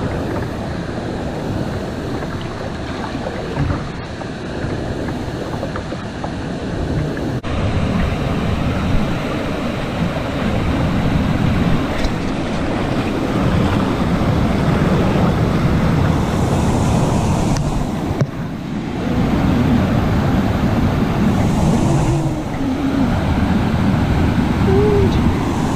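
Water pouring over and through a low stone dam spillway and rushing past in a fast current: a steady loud rush of falling water, louder from about a third of the way in.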